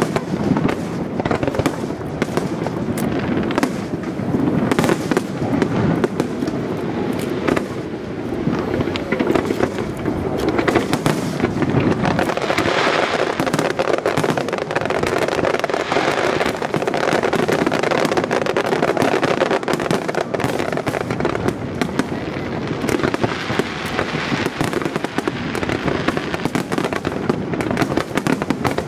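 Fireworks display: aerial shells bursting in quick succession, with many booms and crackles overlapping into a continuous barrage.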